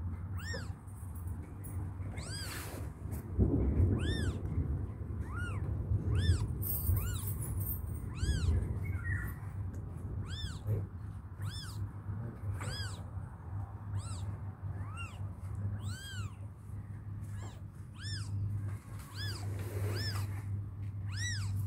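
Newborn kittens mewing: short, high-pitched cries that rise and fall, repeated roughly once a second.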